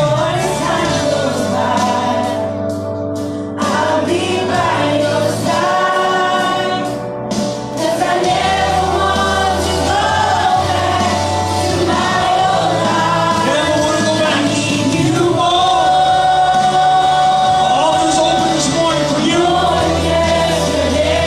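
Gospel worship music: a choir singing over held low chords that change every few seconds.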